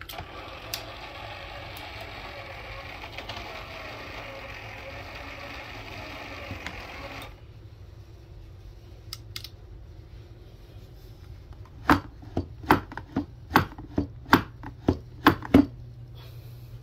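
Small gear motor turning the cable spool of a DIY chicken coop door, running steadily and stopping abruptly about seven seconds in. Later comes a quick series of about ten sharp knocks, roughly three a second.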